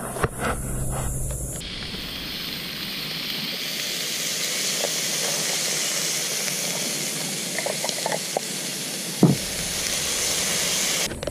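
Beef steak sizzling in a square cast-iron skillet over a wood-fire grill: a steady, dense hiss that starts about a second and a half in. A single dull knock comes about nine seconds in.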